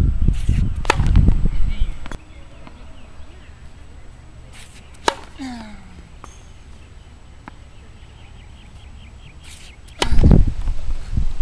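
Tennis serves: the sharp pop of a racket striking the ball about a second in, again around five seconds in, and once more near the end. Wind rumbles on the microphone at the start and near the end.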